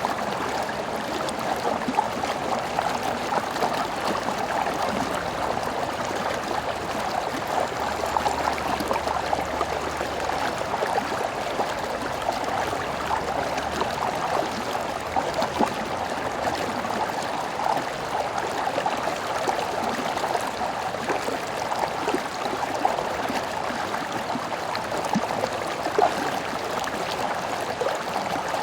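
Stream flowing: a steady babble of running water with many small splashes throughout.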